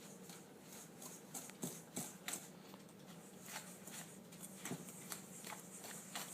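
Dry brownie ingredients (flour, sugar, cocoa, salt) being stirred together in a mixing bowl: faint, irregular scrapes and clicks of the utensil against the bowl.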